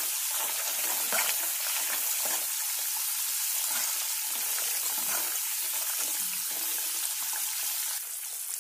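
Spice paste sizzling in hot oil in a metal kadai: the masala is being fried down, with a slotted metal spatula stirring and scraping it across the pan a few times.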